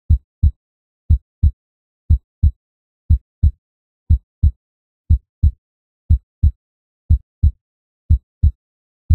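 Heartbeat: pairs of low thumps (lub-dub), one pair about every second, steady throughout.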